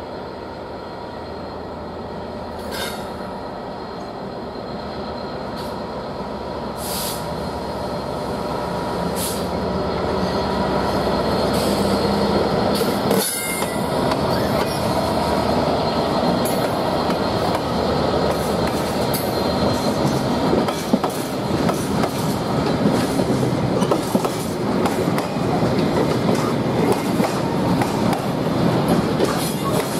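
A Class 66 diesel-electric freight locomotive, with an EMD two-stroke V12 engine, running as it draws slowly closer and passes, growing louder. Its train of loaded hopper wagons follows, rumbling and clattering over the rail joints with some wheel squeal.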